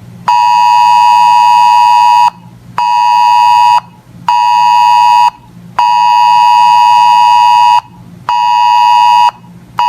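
Weather radio receiver's alert buzzer sounding a loud steady beep in a repeating long-short-short pattern, one two-second beep and then two one-second beeps, twice over. It signals an incoming weather alert, here a Flood Watch.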